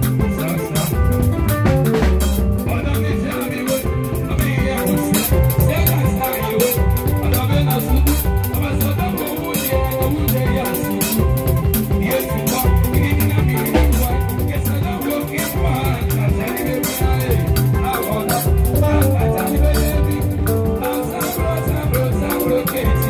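Live band music with a steady beat: drum kit with cymbals, electric bass guitar and keyboard playing together.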